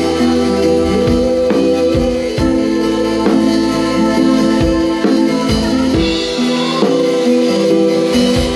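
Music with a steady drum-kit beat, about two strokes a second, over held chords.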